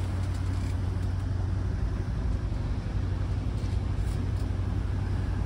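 Tour boat's engine running steadily underway, a constant low drone with an even rushing noise over it.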